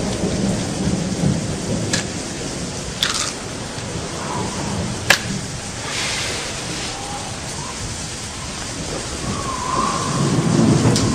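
Thunderstorm: rain falling steadily with rolling thunder, a few sharp cracks, and a low rumble that swells near the end.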